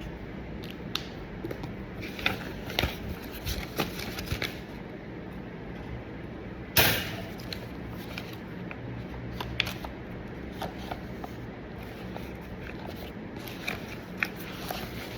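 Paper documents being handled: scattered light clicks and rustles, with one sharper, louder snap about seven seconds in.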